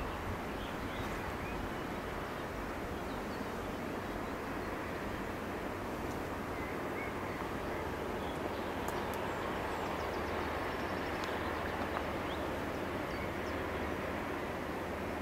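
Steady outdoor rumble with a low, even diesel engine drone from a passing Rhine cargo barge, and a few faint bird chirps.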